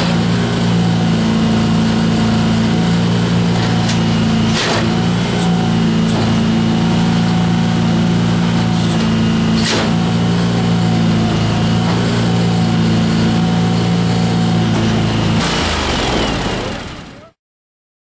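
Vermeer BC600XL brush chipper's engine running steadily at a constant speed, with a few sharp clicks around four to five seconds in and again near ten seconds. Near the end the sound turns rougher and noisier, then cuts off abruptly.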